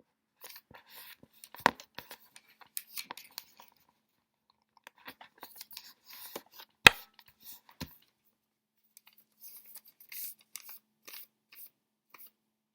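A sheet of origami paper being handled, folded and creased: on-and-off rustling and crisp scraping, with two sharp taps, one about two seconds in and a louder one about seven seconds in.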